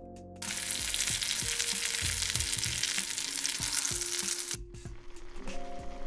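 A thick bone-in steak searing in a stainless steel frying pan, sizzling loudly. The sizzle starts about half a second in and cuts off suddenly after about four seconds, over background music.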